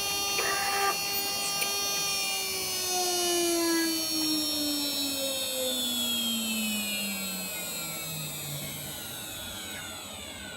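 Desktop CNC router's 800 W water-cooled spindle motor spinning down after the drilling pass: its whine falls steadily in pitch and fades over about nine seconds.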